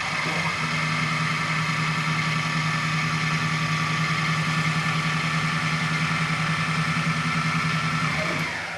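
Spindle drive of an Optimum BF 20 L Vario CNC drill-mill running at a steady speed with a whine of several fixed tones, then winding down and stopping near the end.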